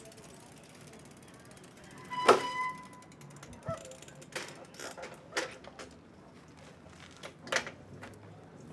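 Bicycles being ridden: irregular mechanical clicks, ticks and creaks from the bikes' freewheels and frames, with one sharp, briefly ringing clank about two seconds in as the loudest event.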